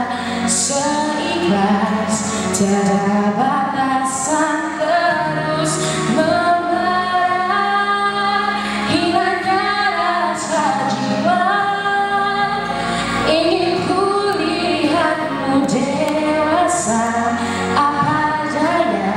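A young woman singing a Malay song solo into a microphone over backing music, in long held notes that glide and bend in pitch.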